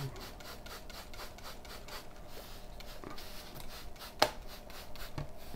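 Hand-held trigger spray bottle misting water, a short hiss with each quick squeeze, several squeezes a second. A sharp click a little after four seconds.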